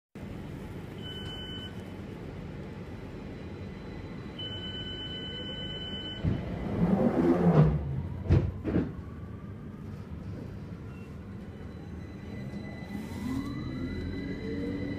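Paris Métro MF77 train running with a steady low rumble. A high electronic buzz sounds twice early on, and loud clattering with a few sharp bangs comes in the middle. Near the end the traction motors start a rising whine as the train picks up speed.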